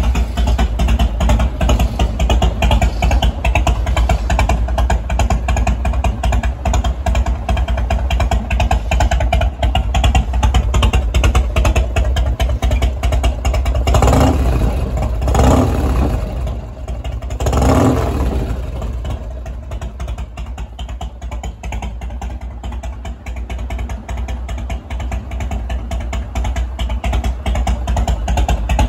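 2000 Harley-Davidson FXDX Dyna Super Glide Sport's Twin Cam 88 V-twin with an aftermarket Bassani exhaust, idling with a pulsing beat and revved briefly three times near the middle.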